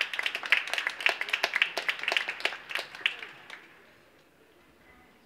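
Audience applauding in an ice rink, a thin crowd whose separate hand claps stand out, dying away about four seconds in.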